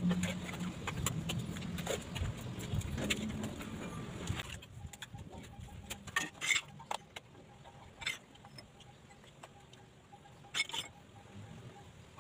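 Steel trowel scraping across wet mortar as it is spread and smoothed on a concrete stair tread, a dense scratchy sound for the first few seconds. It then goes quieter, with a few separate sharp clicks.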